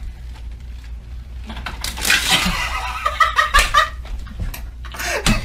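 A person giggling and laughing in short breathy bursts for about two seconds, starting about two seconds in, over a low steady hum.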